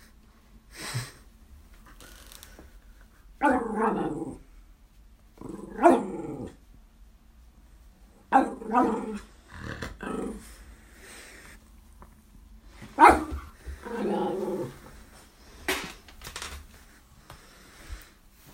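Small dog growling in play with a kitten, in about five bouts of a second or so, a few of them opening with a sharp bark.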